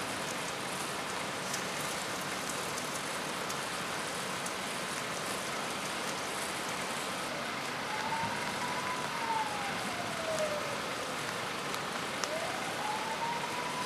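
Steady rain hiss from a thunderstorm. About halfway through, an emergency-vehicle siren comes in, wailing slowly up and down.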